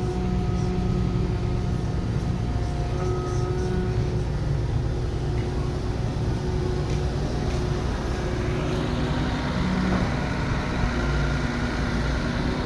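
Heavy construction machine's diesel engine running steadily under load, its engine note shifting slightly about two-thirds of the way through.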